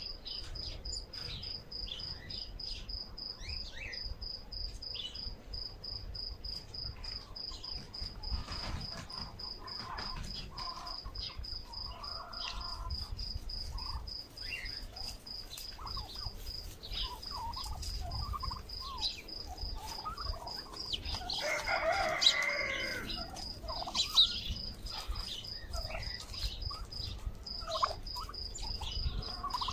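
A flock of domestic turkeys calling as they come in to feed, with short calls from several birds and one loud call about 22 seconds in. Crickets chirp steadily in a fast, even pulse underneath.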